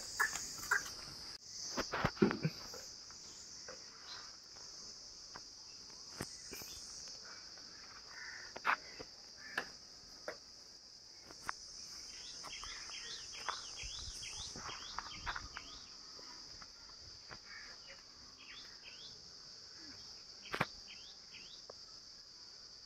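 Steady high-pitched drone of insects, with a few sharp knocks about two seconds in, scattered clicks, and a run of short chirps about halfway through.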